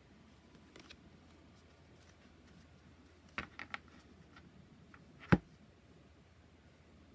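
Handling of an oracle card deck and its packaging: a few faint clicks, a quick run of three taps about three and a half seconds in, and one sharper knock a little after five seconds.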